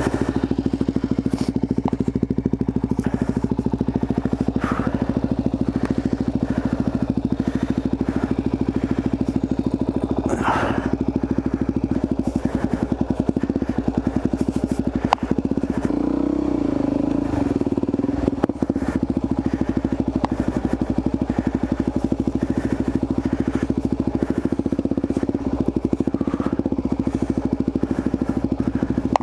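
Supermoto motorcycle engine running steadily at an even pitch, with a few faint knocks and clicks over it.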